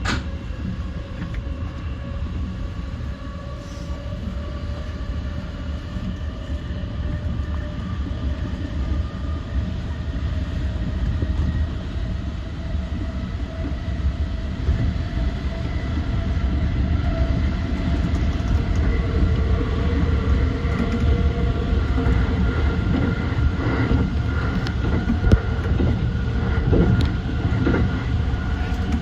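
JR East E235-1000 series electric train under way: a steady rumble of wheels on rail under the whine of its traction motors, which rises slowly in pitch and grows louder as the train picks up speed. A few sharp clacks come from the track in the second half.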